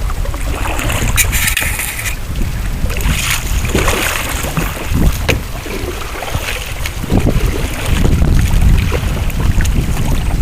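Canoe under way on the water, with splashing and rushing water around the hull. Wind buffets the microphone in a heavy low rumble that gets stronger about two-thirds of the way through.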